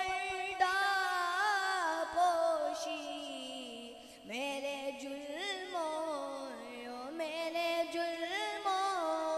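A boy's high voice singing a naat (Urdu devotional song in praise of the Prophet) into a microphone, with no instruments, in long drawn-out, ornamented notes. The line breaks off briefly about four seconds in, and a new phrase begins.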